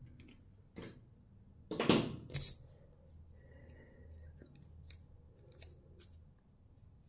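A safety-razor blade in its paper wrapper is being handled and unwrapped, giving a few short clicks and paper rustles, loudest about two seconds in, then a faint low hum.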